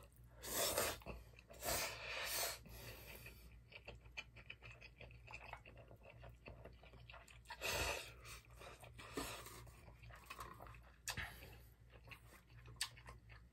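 A person slurping Chapagetti instant black-bean noodles, with several loud slurps in the first three seconds and another around eight seconds in. Between the slurps come chewing and small clicks from chopsticks against a metal bowl.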